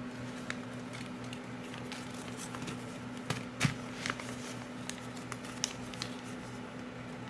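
A sheet of paper being handled and folded: scattered crinkles and taps, the loudest about three and a half seconds in, over a steady low hum.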